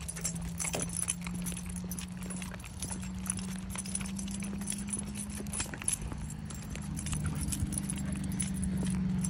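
Quick, irregular clicking and jingling of a trotting beagle's harness and leash hardware, with steps on pavement. A steady low hum runs underneath and edges slightly up in pitch.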